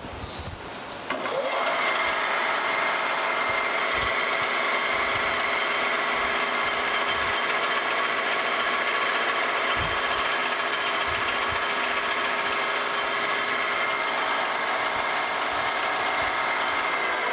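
Vertical milling machine spindle spinning up about a second in, then running at a steady pitch while an end mill takes a slow, light cut across the last flat of a steel square-head bolt.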